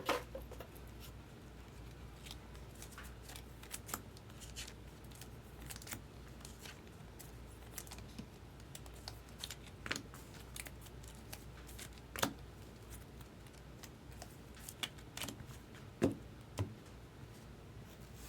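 Trading cards and foil packs being handled at a table: scattered small clicks, slides and crinkles as packs are opened and cards are sorted, with a couple of louder clicks near the end.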